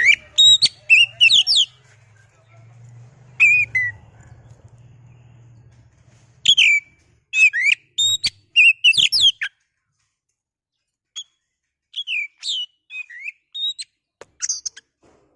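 Oriental magpie-robin (kacer) singing: loud phrases of sharp, swooping whistles and chirps, broken by short pauses and one longer silence about two-thirds of the way through. A faint low hum sits under the song in the first few seconds.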